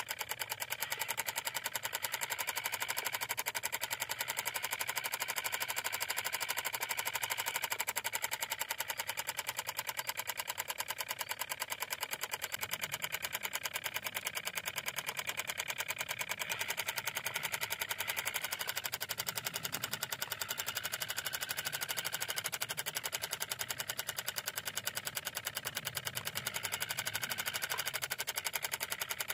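Miniature diesel-style engine on a model hand tractor running steadily, with a fast, even ticking beat.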